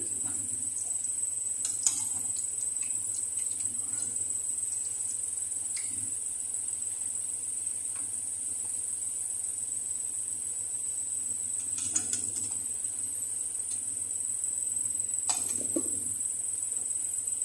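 Bhatura deep-frying in hot oil in a kadhai: a steady, high sizzle. A few sharp clicks of a metal slotted spoon touching the pan are scattered through it.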